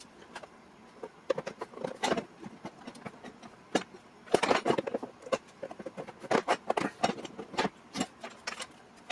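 Irregular clicks, taps and light rattles of small metal parts and hand tools being handled, coming in clusters with brief pauses between them.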